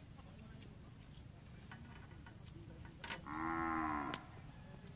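A cow mooing once, a single drawn-out call of about a second starting about three seconds in, over faint background ticks.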